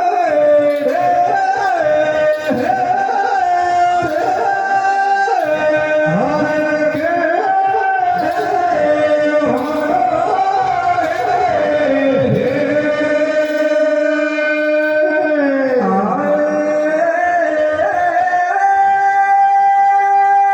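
Male folk singer holding long, sliding notes in a Rajasthani Teja gayan devotional song, over drum accompaniment. A long downward slide comes about three quarters of the way through, then a high note is held to the end.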